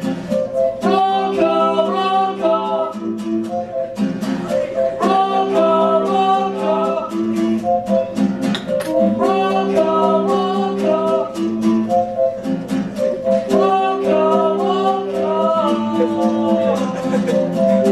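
A song: strummed guitar with a voice singing a melody over it, in phrases that repeat about every four seconds.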